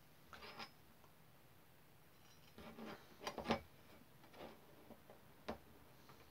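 A few faint clicks and scrapes of a screwdriver working a small screw into a model locomotive's metal smoke box and footplate. The loudest cluster comes about three seconds in, and a single sharp click follows near the end.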